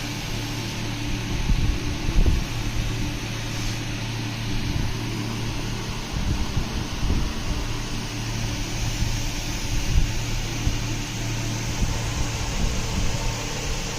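Steady fan-like whirr with a low hum, and irregular soft low thuds.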